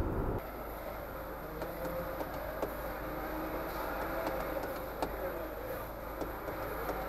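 Car cabin sound: heavy tyre and road noise at speed for the first half-second, then an abrupt drop to the quieter, steady low hum of the car idling in city traffic, with a few faint clicks.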